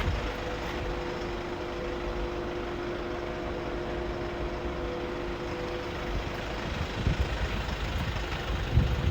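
2016 Mercedes Sprinter 213 CDI refrigerated van standing with its engine idling and the fridge unit above the cab running: a steady hum with two held tones that fade out about six seconds in, followed by a few low bumps near the end.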